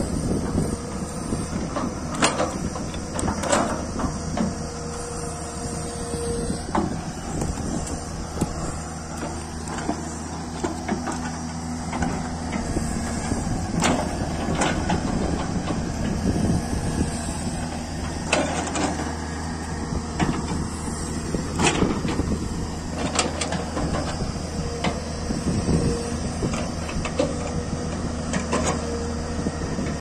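L&T-Komatsu hydraulic crawler excavator working in soil: its diesel engine runs steadily under load with a hydraulic whine that comes and goes. Scattered knocks and clanks from the bucket and boom linkage break in every few seconds as it digs and lifts earth.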